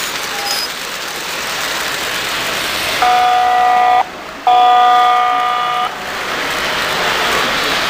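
Model train locomotive's electronic horn sounding two blasts of a multi-note chord, a one-second blast about three seconds in and a longer one just after, over the steady running noise of O-gauge model trains rolling on three-rail track.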